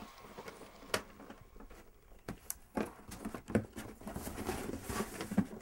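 Cardboard box and packaging being handled: rustling, with several sharp light knocks and taps as the flaps are moved and folded.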